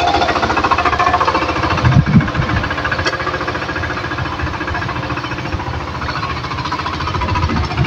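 Single-cylinder diesel engine of a walking power tiller chugging steadily while it churns a flooded paddy field into puddled mud for rice transplanting, with a couple of louder knocks about two seconds in.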